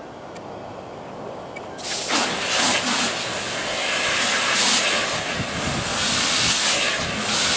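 Mini washing machine running, sped up about eight times, so it sounds like a rushing hiss. The hiss starts loudly about two seconds in.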